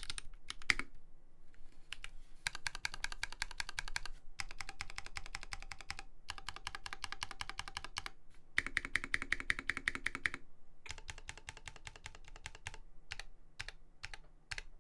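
Typing on an LZ IRON custom mechanical keyboard with lubed Holy Panda tactile switches on a brass plate. Fast runs of keystrokes come in bursts with short pauses between them, thinning to a few single key presses near the end.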